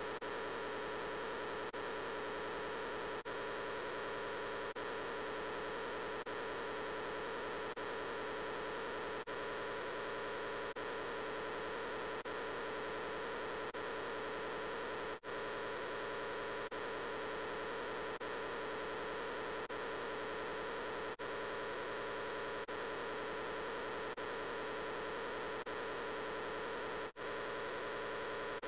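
The "I'm Peppa Pig" voice clip stacked on itself so many times that it merges into a dense, steady hum-like wash in which no words can be made out. It dips briefly about every second and a half, where the looped clip restarts.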